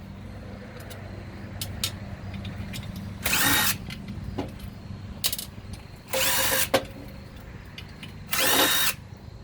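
DeWalt cordless impact driver with a socket adapter, run in three short bursts of about half a second each, backing out the housing bolts of an air pump. A steady low hum sits under it.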